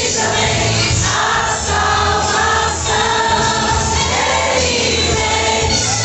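A choir singing a gospel song with a band accompaniment and a steady bass line.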